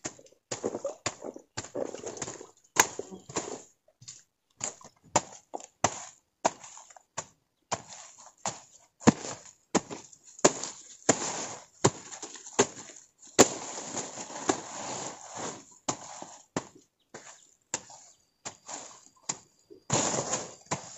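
Machete hacking and scraping at soil and dry plant litter, an irregular run of sharp chops at about two a second with dry leaves rustling between them.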